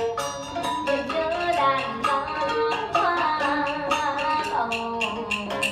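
Traditional Vietnamese music accompanying a water puppet show: a melody with gliding notes over regular sharp percussion strikes.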